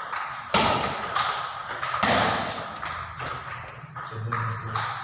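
Table tennis rally: the celluloid ball clicking sharply off rubber paddles and the table, a handful of knocks roughly half a second to a second apart, the two loudest about half a second and two seconds in, before the point ends.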